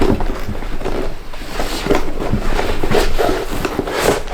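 Rummaging through the build kit's packaging to pull out the lettered parts bag: irregular rustling with scattered clicks and knocks of parts being handled.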